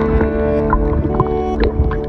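Background music: held chords with short notes played over them.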